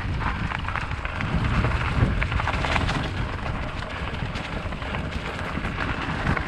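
Wind buffeting the microphone with a low rumble, over the crunch and rattle of mountain bike tyres rolling on a dirt trail, with scattered sharp clicks throughout.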